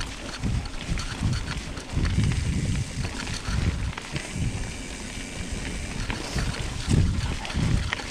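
Wind buffeting a GoPro's microphone during a mountain bike ride, heard as uneven low rumbling gusts, with scattered small clicks and rattles from the bike.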